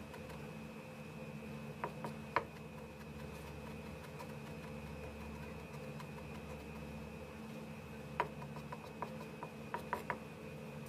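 Chef's knife chopping garlic on a plastic cutting board: scattered sharp taps, two about two seconds in and a quick cluster near the end, over a steady background hum.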